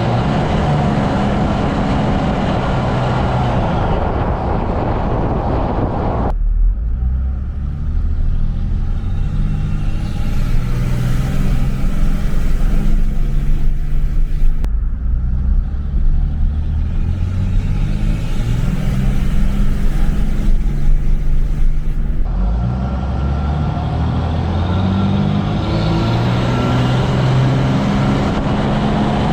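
5.9 Cummins turbo-diesel running, its engine speed stepping up and down several times, with the Holset turbo whistling as it spools through an open, unmuffled intake hose. The sound turns duller for the middle half.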